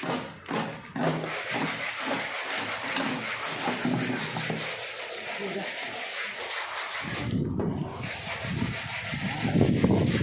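Lightweight-brick (foam concrete) machine running with a steady rushing, scraping noise. About seven seconds in, a louder, deeper rumble joins it.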